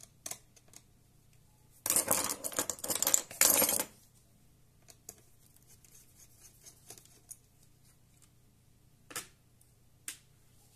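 Small hard metal objects clattering and rattling for about two seconds, then a few light single clicks of a small screwdriver working at a laptop motherboard's wireless card.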